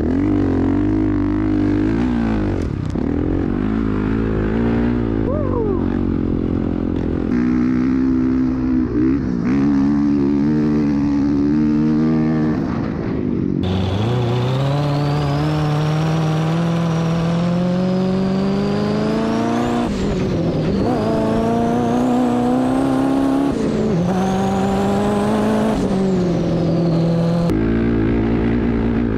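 Honda CRF450R dirt bike's single-cylinder four-stroke engine running under throttle, its pitch shifting as the rider works it. About halfway through, a sandrail's engine takes over, revving up and down with a high whine that rises and falls with it. Near the end the dirt bike's engine returns.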